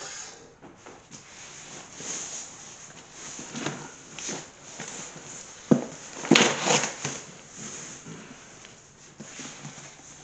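A cardboard shipping box being handled on a wooden table: cardboard rubbing and scraping, with a few sharp knocks about six seconds in as the box is tipped and bumped.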